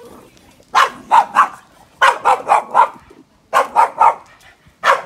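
Boston terrier barking in quick runs of three or four barks, with short gaps between the runs, about eleven barks in all.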